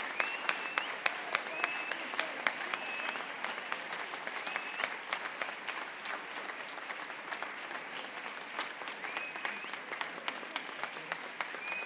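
Audience applauding steadily, easing off a little in the second half, with a short high tone sounding several times over the clapping.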